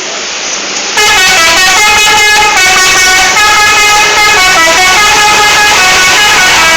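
Indonesian bus 'telolet' multi-tone horn playing a tune: several horn notes sound together and change pitch in steps, starting about a second in and running for about five and a half seconds.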